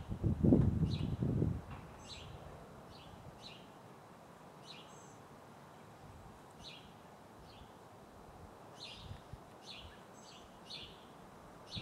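An arrow fletched with a Starrflight FOB arrives and strikes the target at the start: a sudden dull impact with a short low rumble lasting about a second and a half. Small birds chirp repeatedly throughout.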